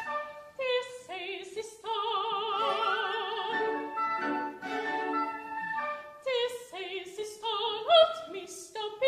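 Operatic singing: a high classical voice with wide vibrato holds long notes over instrumental accompaniment.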